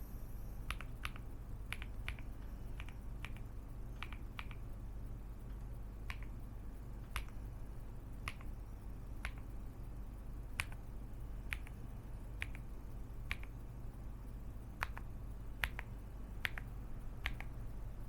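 Keys on an LMK81 full-aluminium mechanical keyboard with a PC plate being pressed one at a time. Each stroke is a sharp clack, often heard as a close pair of down-stroke and return, about one or two a second, over a steady low hum.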